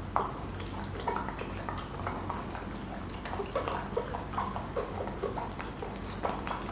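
Pomsky puppy chewing and licking at a stuffed Kong Extreme rubber toy, with irregular clicks and knocks of teeth on hard rubber.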